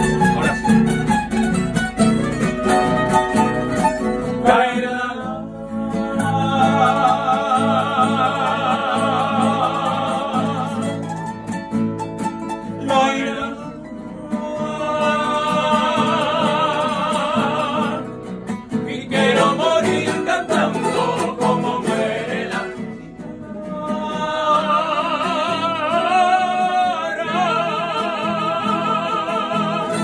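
A Spanish tuna ensemble playing live: strummed guitars, bandurria and tambourine under several voices in harmony holding long notes with vibrato, in phrases a few seconds long with short breaks between them.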